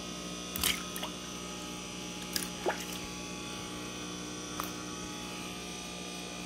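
Steady electric hum of fish-room pumps and filters, with about five brief drips of water, the loudest about half a second in.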